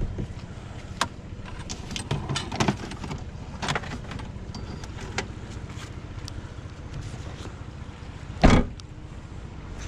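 Jeep running with a steady low rumble, with scattered clicks and knocks and one louder thump near the end.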